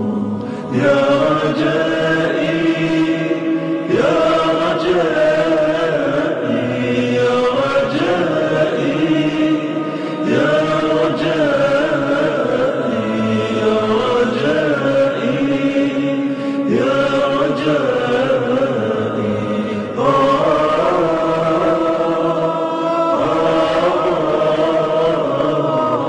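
Slow wordless vocal music: layered voices chanting long held notes, moving to a new chord every few seconds.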